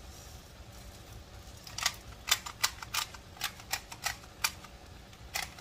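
Pepper being shaken out of a shaker over the pan of corn: a run of sharp clicks, about four a second, starting about two seconds in, with two more near the end.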